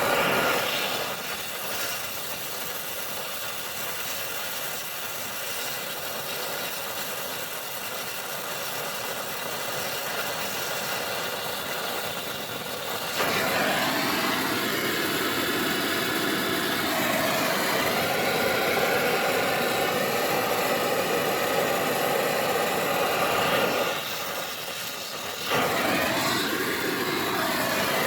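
Oxy-acetylene torch flame running with a steady rushing hiss while it heats a sacrificial bolt to fuse it onto a broken oil pan bolt. It gets louder about halfway through, drops back briefly near the end, then comes up again.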